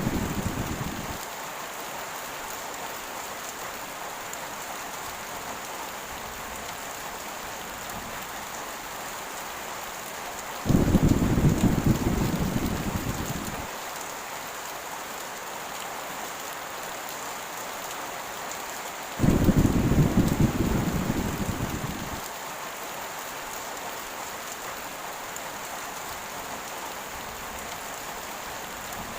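Steady heavy rain, with deep rumbles of thunder: one fading out about a second in, then two more that start suddenly about ten and nineteen seconds in and die away over about three seconds each.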